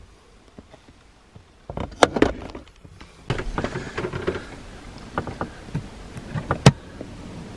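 Scattered clicks, knocks and scraping of car parts and tools being handled during gear shifter removal, with one sharp click near the end that is the loudest.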